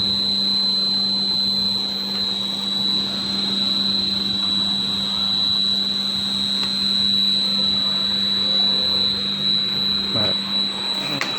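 Cardboard box grooving machine running steadily: a constant motor hum under a high, steady whine, with a couple of short knocks near the end.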